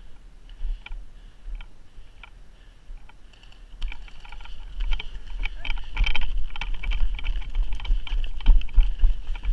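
Footsteps crunching in packed snow: a few slow steps, then from about four seconds in a fast, dense run of crunching steps.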